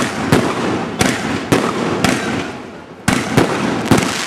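Aerial fireworks shells bursting in quick succession: about eight sharp bangs, several in the first two seconds, a short lull, then a fresh cluster of bangs near the end, over a continuous hiss and crackle.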